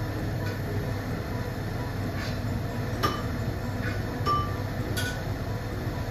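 Pot of pinapaitan broth, beef tripe and offal, boiling on the stove: a steady low rumble with scattered small pops from the bubbles.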